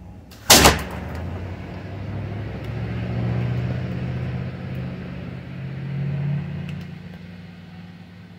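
A single sharp crack about half a second in: a slingshot shot striking at the target. It is followed by the low engine hum of a passing vehicle, which swells and fades over about six seconds.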